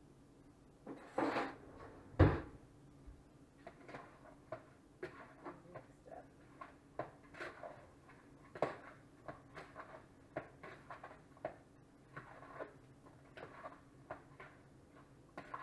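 Two knocks about one and two seconds in, the second a sharp thump, then a long run of light, irregular clicks and scrapes of a metal spoon against a plastic bowl as raw meat chunks are stirred with seasoning.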